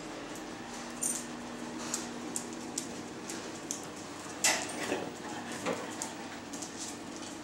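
Dogs moving about on a concrete floor: scattered light clicks and scuffles of their nails and paws, with a louder scuffle about halfway through. A steady low hum runs underneath.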